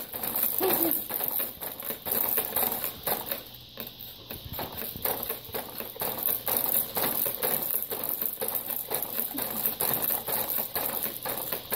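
Baby activity jumper rattling and clicking quickly and repeatedly as a baby bounces in it, its frame, springs and attached toys knocking with each bounce.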